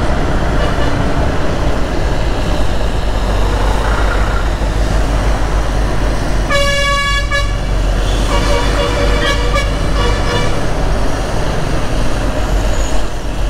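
A vehicle horn honks among slow traffic on a hill road: one short blast about six and a half seconds in, then several more toots over the next two seconds. A steady rumble of wind and road noise on a riding microphone runs underneath.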